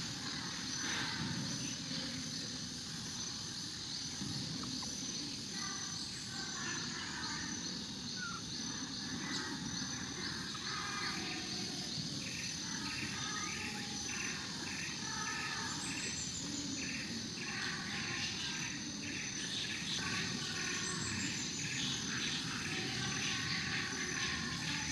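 Forest ambience: a steady high insect drone, with rows of rapid pulsing chirps that come in a few seconds in, and a few short, high, falling bird calls over a low background rumble.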